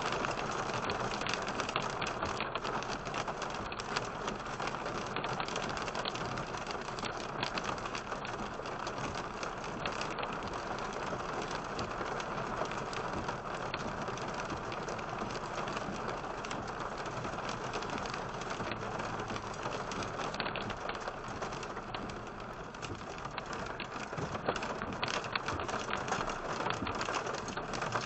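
Heavy rain mixed with pea-size hail pelting a car, a dense steady patter with many sharp ticks of stones striking. It eases slightly about three-quarters of the way through, then picks up again.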